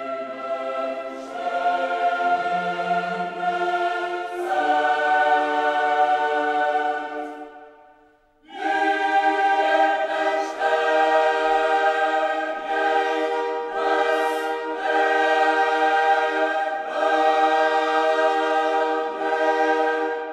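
Background music: a choir singing long held chords, breaking off briefly about eight seconds in and then resuming.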